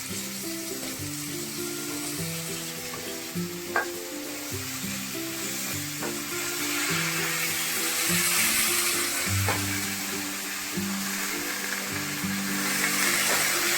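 Food sizzling as it fries in hot mustard oil in a pan; the sizzle gets louder about halfway through. A few sharp clicks of a utensil against the pan, over soft background music.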